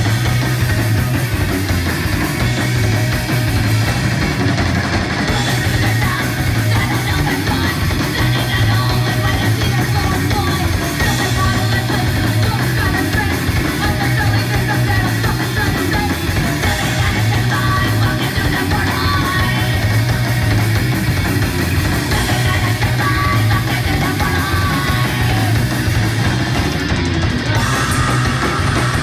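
Hardcore punk band playing live: distorted guitar, bass and drums, with a female vocalist screaming over them.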